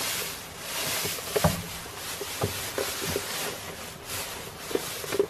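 Hay rustling as an armful is pushed into a wooden goat hay feeder and the goats pull at it, with a few short knocks.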